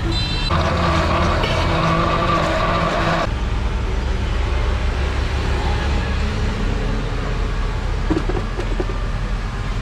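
Electric countertop blender running for about three seconds, blending a drink, then cutting off suddenly. A low steady rumble continues underneath.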